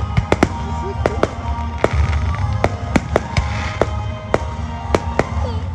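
Aerial fireworks shells bursting in a rapid, irregular string of about fifteen sharp bangs, some only a fraction of a second apart, over a steady low rumble, with music playing underneath.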